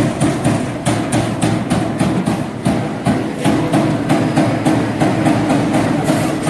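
CNC turret punch press punching sheet metal: a rapid, even run of hits, about three a second, over a steady machine hum.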